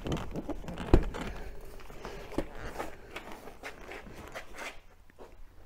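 Irregular clicks, knocks and rustling from hands and tools working inside a car's cabin as the driver's seat is taken out, with one sharp knock about a second in.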